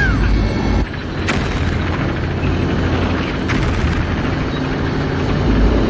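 Battle sound effects: booming explosions over a continuous heavy low rumble, with sharp crashes about a second and a half in and again around three and a half seconds.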